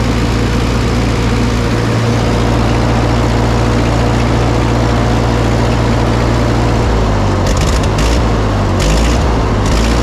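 Old farm tractor engine idling steadily, then from about seven seconds in running rough and uneven, with a few sharp crackles, as the battery cable is pulled to test the alternator. The faltering shows the alternator is not charging.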